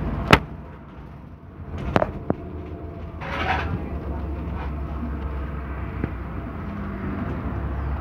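Scania N230UD double-decker bus heard from the upper deck: a steady low engine drone with body rattles. There is a sharp knock just after the start, a few clicks about two seconds in, and the drone grows stronger about halfway through.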